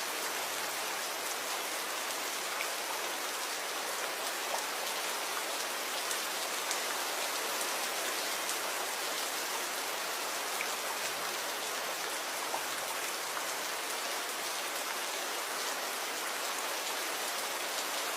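Steady rain falling, an even hiss with scattered drops ticking on a surface.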